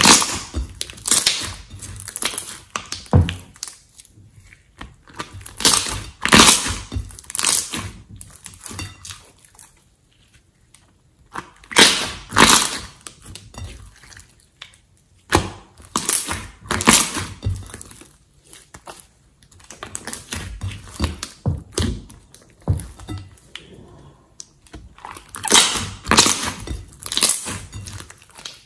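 Hands squeezing, pressing and stretching a large mass of green slime, giving wet squelches and clusters of sharp popping clicks in bursts every few seconds, with short quiet gaps between them.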